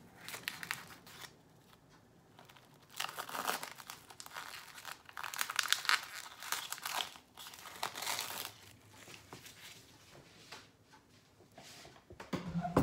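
Plastic-wrapped package of beef strips crinkling as it is handled and opened, in several irregular bursts, with a soft thump near the end.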